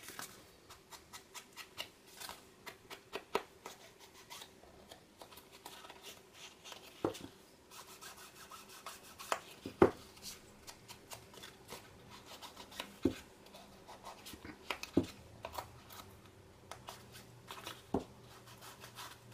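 Foam ink blending tool dabbed on a Distress Ink pad and rubbed over the edges of a kraft-paper tag: irregular soft taps and rubbing, with a handful of sharper taps spread through.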